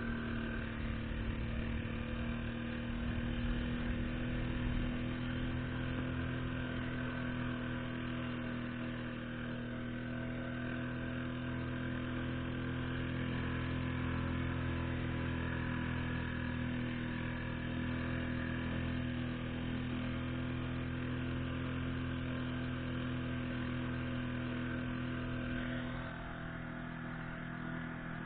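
Yamaha 4 hp outboard motor running steadily at high throttle with the inflatable boat on the plane. Near the end the sound drops a little.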